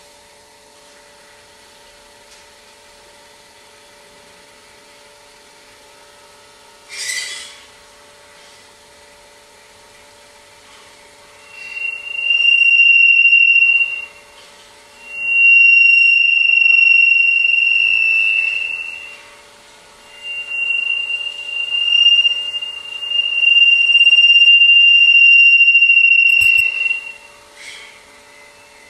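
Acoustic (Larsen) feedback between a microphone on one robotic arm and a loudspeaker cone on the other: a loud, steady, high-pitched whistle that swells in about twelve seconds in and cuts out and returns three times as the arms move the microphone closer to and away from the cone. A faint steady hum sits underneath, with a short hiss about seven seconds in.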